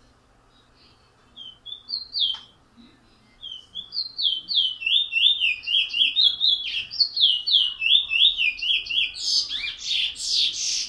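Songbird singing: a few short whistled notes, then a fast run of repeated downslurred whistles at about three a second, ending in a harsh, buzzy chatter near the end.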